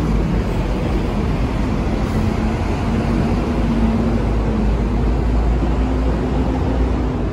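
Steady outdoor street noise: a continuous low rumble of road traffic, with no distinct footsteps standing out.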